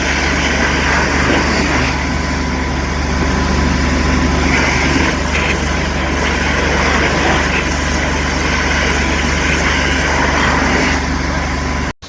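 Steady engine running, with a constant low hum, typical of a sewer-jetting truck's engine and high-pressure pump at work; it breaks off abruptly at the very end.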